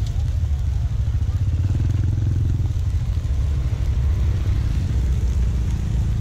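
A motorcycle passes in the street, loudest about two seconds in, over a steady low rumble.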